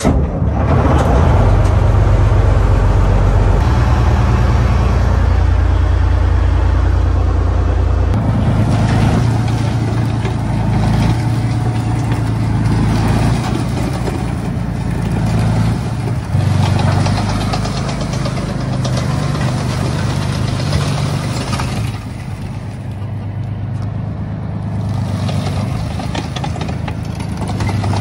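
A heavy vehicle's engine running steadily, its deep note shifting about eight seconds in and getting quieter after about twenty-two seconds.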